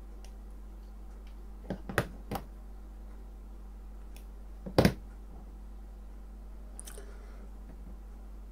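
Small parts and hand tools being handled on a cutting mat: three light clicks about two seconds in, then a louder double knock about five seconds in as a pair of pliers is set down. A steady low hum lies underneath.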